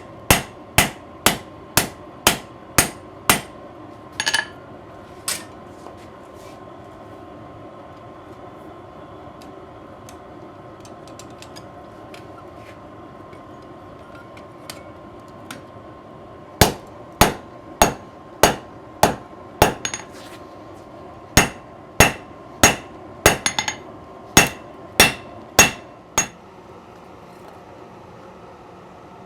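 Hand hammer striking hot steel on an anvil while forging out a knife blade: sharp ringing blows, nearly two a second, in runs. The hammering stops for about ten seconds, then starts again in two more runs with a short pause between them.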